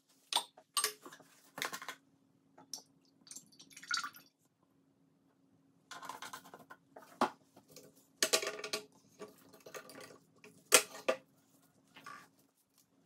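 Cleaning solution poured into the glass jar of a clock-parts cleaning machine, its pitch rising as the jar fills. This is followed by a run of separate clinks and knocks of metal and glass as the machine's head and parts are handled.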